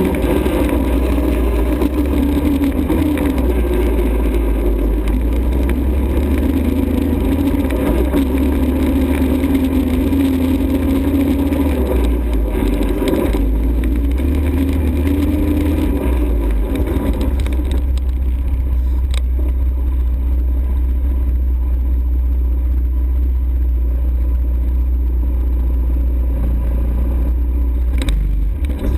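An ATV engine runs on the move, its pitch rising and falling with the throttle over a heavy, steady low rumble. After about seventeen seconds the engine tone fades back, leaving mostly the rumble, with a couple of sharp knocks.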